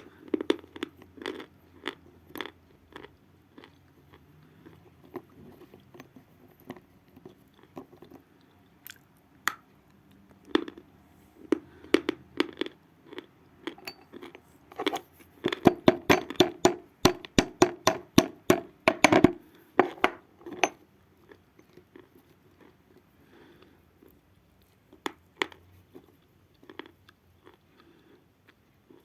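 Natural chalk being bitten and chewed close to the microphone: dry, crisp crunches, scattered at first, then a dense run of quick crunches about halfway through, thinning out again near the end.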